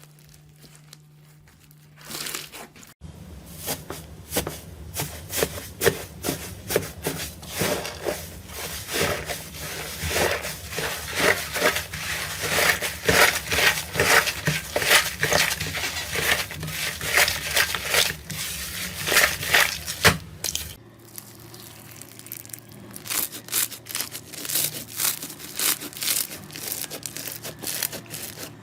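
Crunchy slime being pressed and kneaded by hand, giving dense crackling and popping clicks. The crackling is loudest through the middle and softer near the end, with a steady low hum underneath for most of it.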